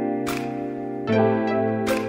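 Soft instrumental background music: sustained chords that change about a second in, with two sharp click-like percussive hits.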